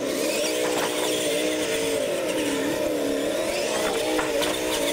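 Radio-controlled monster trucks racing, their electric motors and gears whining steadily. The pitch dips and recovers a couple of times midway as the throttle changes.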